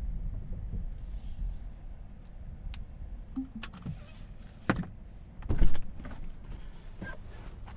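Inside a Tesla Model 3's cabin: a low rumble fades as the car comes to rest, then a few sharp clicks and two louder thumps, the loudest about five and a half seconds in, typical of door and cabin handling at the end of a drive.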